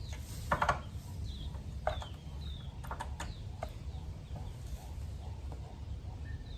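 A few light clicks and taps of small metal parts being handled, the sharpest about half a second in, over a steady low hum, with a few short falling bird chirps in the background.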